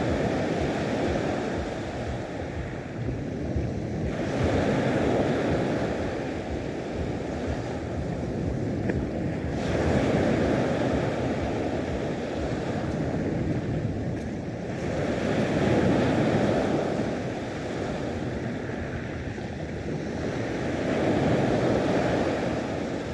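Sea waves breaking, swelling and easing about every five to six seconds, with wind buffeting the microphone.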